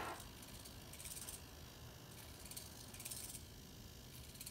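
Small hobby servo motors on a 3D-printed robotic arm's gripper whirring faintly in a few short spurts as the gripper is driven open and turned.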